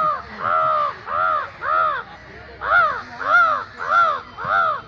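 Crow caws, about eight in quick succession, each call rising then falling in pitch.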